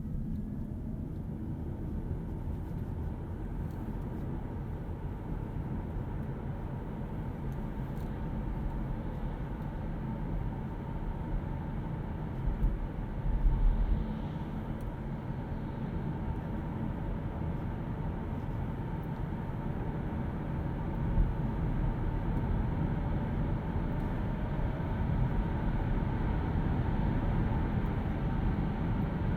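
Hyundai Kona Electric driving: steady road and tyre noise with no engine sound, slowly growing louder toward the end, and a low bump about halfway through.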